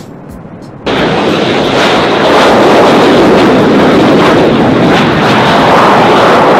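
Jet aircraft engines at high power on a runway, a loud steady rushing noise that cuts in abruptly about a second in; before that, a fainter hiss with a few clicks.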